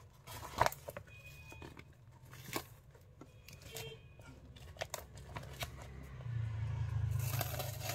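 Handling of a plastic-taped parcel: scattered light clicks and rustles of tape and packing, with a steady low hum underneath, and a longer scratchy tearing noise near the end as the wrapping is worked open.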